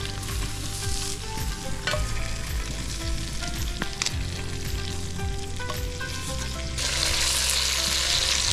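Rabbit pieces frying in rendered bacon fat in a cast-iron Dutch oven over an open fire: a steady sizzle with a few sharp clicks, growing louder about seven seconds in.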